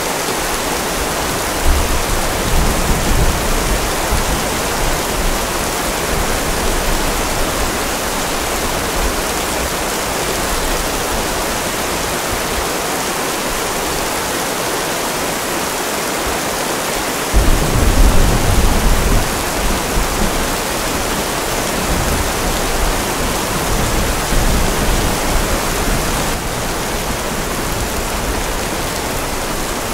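Steady rain hiss with low rolling thunder. One rumble builds about two seconds in, and a louder one breaks about halfway through and rolls on for several seconds.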